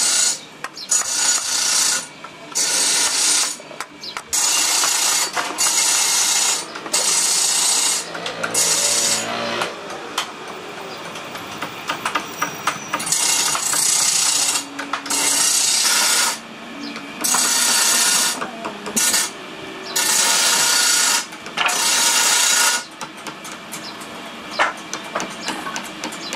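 Woodworking tools in a carving workshop: bursts of harsh tool noise, each about a second long with short gaps, through most of the clip. Near the end they give way to a run of quick light taps of a wooden mallet driving a carving chisel into wood.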